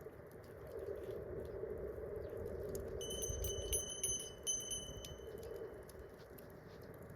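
Wood campfire crackling with scattered sharp pops. About three seconds in, a thin, steady, high whistle starts and holds for about three seconds with a brief break.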